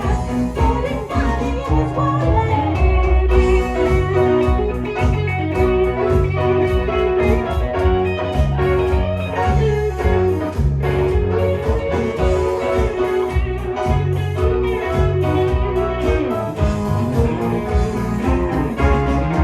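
Live band playing an instrumental passage, with a bass line moving from note to note under held chords and a steady drum beat.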